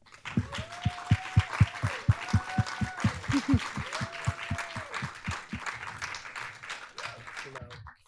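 Audience applauding, dying down toward the end.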